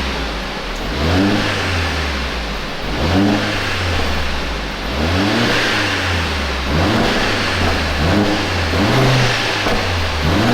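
Mercedes-AMG A45 S's 2.0-litre turbocharged four-cylinder engine idling and being blipped with light revs, about one every two seconds, each rising in pitch and falling back to idle.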